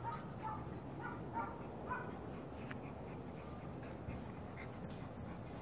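Puppies whimpering and yipping: short high cries about every half second over the first two seconds, then fading to a few faint ones.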